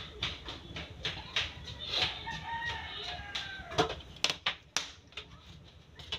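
A rooster crowing once, one long call starting about two seconds in, with several short sharp clicks after it.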